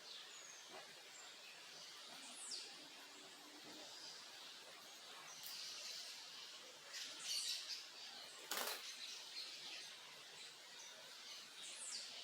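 Small songbirds chirping in a backyard over a steady faint hiss. There are a few quick downward-sweeping chirps, a busier run of calls about seven seconds in, and one sharp click about eight and a half seconds in.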